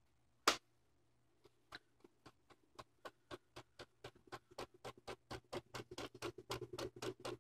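Advent Model 201 cassette deck: a sharp click as the play key latches, then the transport starts running with a regular ticking that speeds up from about four to about six ticks a second and grows louder. The deck's rubber drive wheel has gone soft and tarry.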